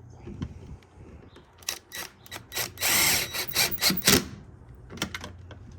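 Series of irregular sharp metal clicks and rattles, densest in a short burst about three seconds in, from a truck door handle and its latch parts being worked and fitted.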